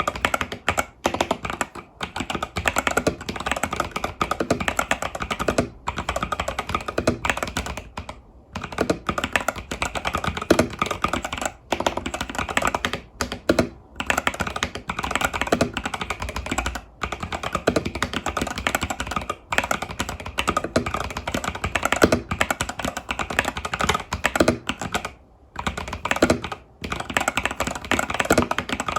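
Steady, fast typing on an Epomaker TH80 Pro mechanical keyboard fitted with Epomaker Budgerigar tactile switches and stock keycaps, broken by a few short pauses.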